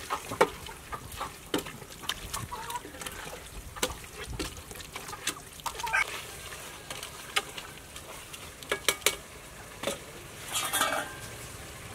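A ladle stirring raw beef chunks through thick chili paste in an aluminium pot, with irregular wet squelches and clinks and knocks against the pot.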